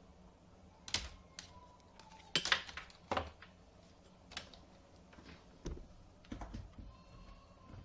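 Irregular clicks and light knocks, about a dozen, the loudest cluster about two and a half seconds in: hands handling the DVR and connecting a power adapter's plug and cable.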